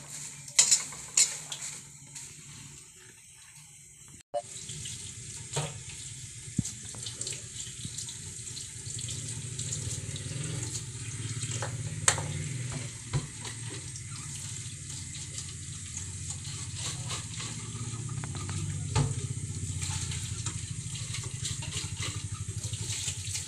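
A spatula scraping and clicking as it stirs popcorn in a pan, then, after a short break about four seconds in, water running steadily from a tap into a sink, with a few knocks.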